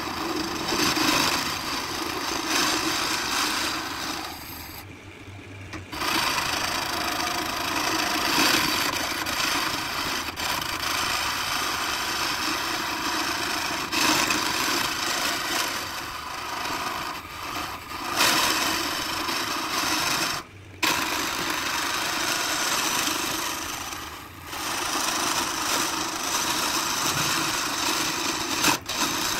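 A gouge cuts a spinning bowl blank of glued colored pencils and epoxy on a wood lathe: a continuous scraping cut over the lathe motor's hum. The sound drops out briefly about five seconds in and again about twenty seconds in.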